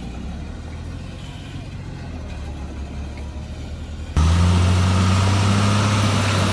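Diesel engine of a loaded Tata tractor-trailer running at steady low revs. It is faint and distant at first, and about four seconds in it becomes much louder and closer.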